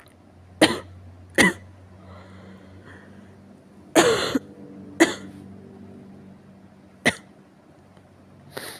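Severe coughing: six sharp coughs at irregular intervals, with a longer cough about four seconds in.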